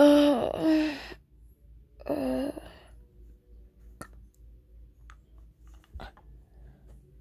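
A boy's wordless vocal sounds, two short sighing hums about two seconds apart, the first jumping up in pitch and back down. Then come a few faint clicks from the lollipop he is sucking.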